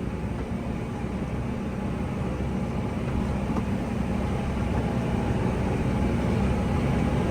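Tractor engine and Massey Ferguson RB 4160V round baler running steadily while baling wet oats, a constant drone that grows slowly louder.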